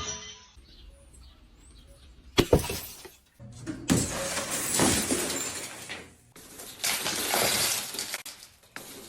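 Glass shattering: a sharp crash about two and a half seconds in, then two longer stretches of breaking glass and noise, each starting and stopping abruptly.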